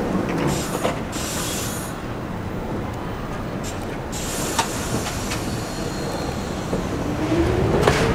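Kawasaki R62 subway train standing at the platform with its doors closed, with a couple of spells of hissing early on. About seven seconds in it starts to pull out: a rising whine from the traction motors as it gathers speed.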